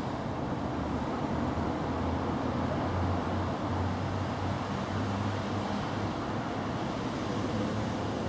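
Steady outdoor background noise with a low, wavering rumble and no distinct events.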